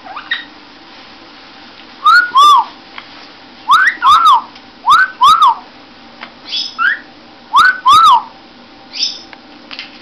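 Green Amazon parrot whistling a two-note wolf whistle, a rising note then a rising-and-falling one, four times, with a few shorter, softer whistled calls in between.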